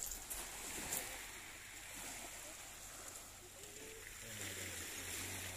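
Faint, steady wash of small waves on a pebble shore in a calm sea. A faint low hum joins about four seconds in.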